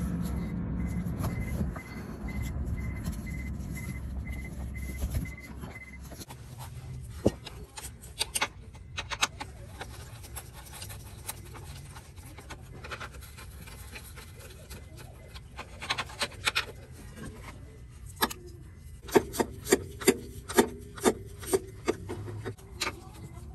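Hand tools working on steering-rack hardware under a car: rubbing and scraping against metal, with a low rumble in the first few seconds and a run of sharp clicks, about two or three a second, near the end.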